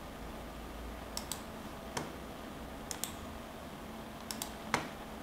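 Computer mouse button clicks: about eight short, sharp clicks, several in quick pairs, the loudest near the end.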